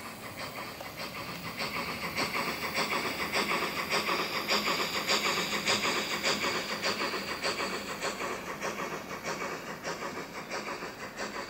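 Recorded steam-locomotive exhaust chuffs from the Zimo MX645R sound decoder in a Hornby OO gauge Crosti 9F 2-10-0 model, played through its onboard speakers in a steady, even beat. The chuffs grow louder toward the middle and then fade as the model runs by.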